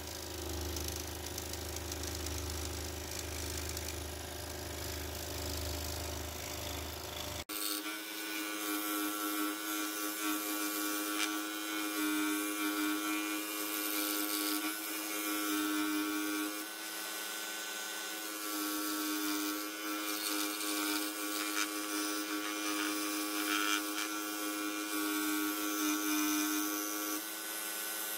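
Pégas 21-inch SCP21CE scroll saw running steadily with a fretsaw blade sawing through a wooden tree slice, a constant motor hum with the blade's rapid strokes. About a quarter of the way in, the low hum drops out abruptly.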